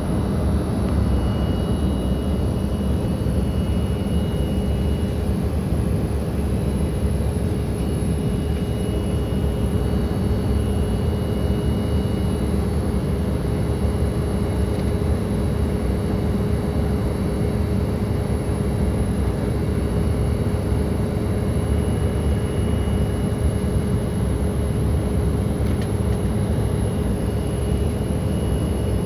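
Steady cabin noise of an Embraer E-Jet airliner in flight: an even, low rumble of the engines and air rushing past the fuselage, with a steady mid-pitched hum and faint high whines that come and go.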